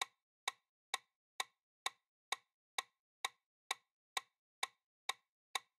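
Countdown-timer ticking sound effect: short, sharp clock-like ticks at an even pace of a little over two a second, with silence between them.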